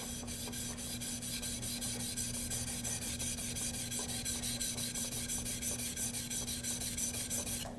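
Steel chisel being honed freehand on a wet sharpening stone: a steady back-and-forth scraping, a few strokes a second, that stops just before the end. The bevel is being worked toward the cutting edge before moving on to finer grits.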